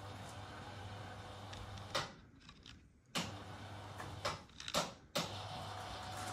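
Motorised Luxaflex venetian blind running in short stretches: a steady motor hum that stops and restarts about three times, with a sharp click at each stop and start, as the slats tilt open.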